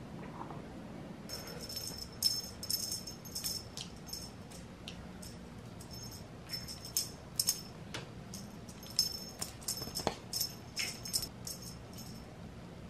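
Small bell on a cat toy jingling in short, irregular shakes, on and off, with a couple of light knocks between them.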